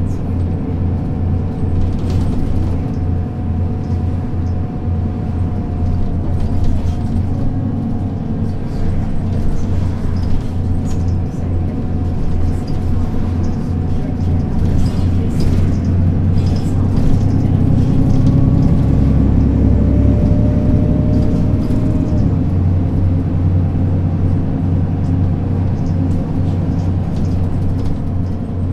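Mercedes-Benz O 530 Citaro city bus heard from inside the passenger cabin while driving: the engine's steady low drone with small rattles and ticks. The drone grows louder and heavier about two-thirds of the way through as the bus pulls harder, with a faint whine rising in pitch.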